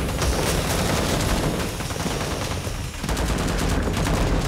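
Rifles firing rapidly in a gunfight, many shots close together with echoing noise between them; this is a drama's staged gunfire sound effects. The shots come thickest near the end.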